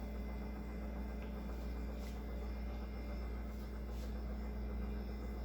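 Steady low electrical hum: faint room tone.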